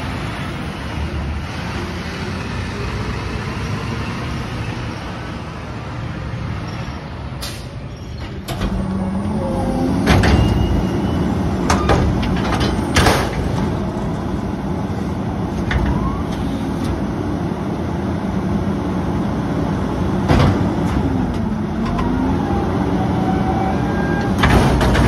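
Garbage truck diesel engine running; about a third of the way in it grows louder and revs up as a rear loader's hydraulic cart tipper lifts and empties a trash cart. Sharp metal bangs of the cart being knocked into the hopper come at irregular intervals, and the engine pitch dips and climbs again a little before the end.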